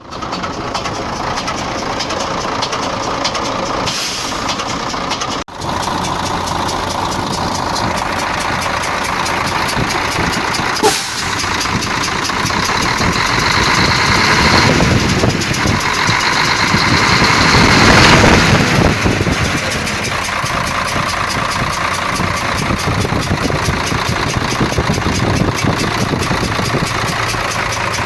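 Mercedes-Benz 1836 truck's diesel engine running with a rhythmic knock, which the owner puts down to a dropped valve. It gets louder about halfway through, then settles back.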